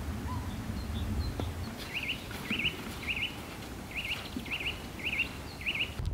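A small songbird calling: one short, wavering note repeated about seven times, roughly twice a second, starting about two seconds in, over faint steady background noise.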